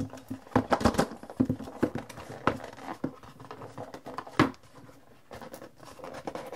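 Hands sliding the lid off a cardboard tablet box: scattered scrapes, rubs and light taps of fingers on cardboard, the sharpest knock about two thirds of the way through.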